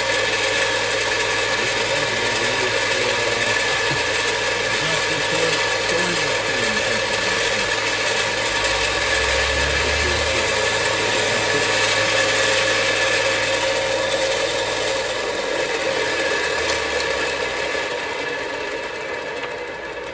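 Electric motor of a Parkside bench grinder with belt sander running steadily with a constant whine and hum. It is switched off about 15 seconds in and coasts down, its sound slowly fading.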